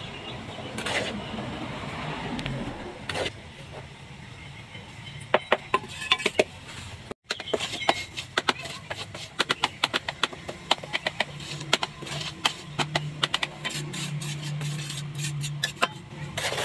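Small steel trowel scraping and tapping on the cement surface of a tile mold while the tile is smoothed: scratchy scraping at first, then a run of quick sharp taps and clicks from about five seconds in.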